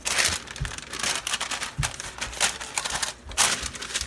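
Rapid, irregular crackling and crinkling clicks from hands working the ends of a rolled sausage log closed, with a brief lull near the end followed by one sharper crackle.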